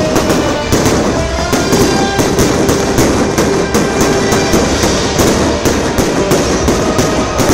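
Aerial fireworks display: a continuous barrage of shell bursts, about four bangs a second, with no pause.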